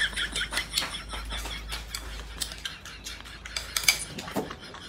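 Chopsticks clicking and scraping against a ceramic bowl as food is shovelled quickly into the mouth: a rapid run of small taps, with a louder clatter about four seconds in.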